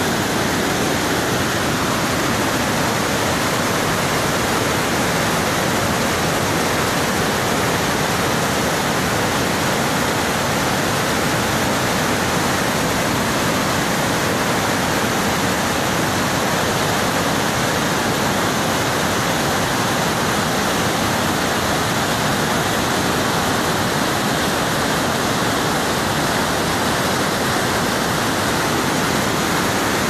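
Muddy flash-flood water rushing over a rocky waterfall in a steady, loud whitewater rush; the river is in spate, running fast and hard.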